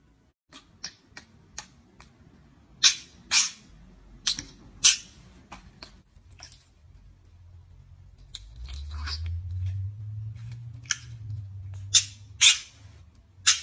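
A pet bird giving a run of short, sharp chirps at irregular intervals, a few of them louder, with a low hum underneath in the second half.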